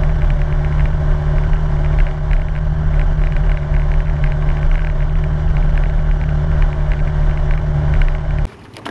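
Small fishing boat's outboard motor running steadily at speed, with water and wind rushing past the hull; it cuts off abruptly near the end.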